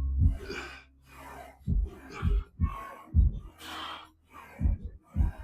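A man breathing hard, with a quick series of forceful gasps and blown-out breaths, as he strains through a heavy set of a leg exercise.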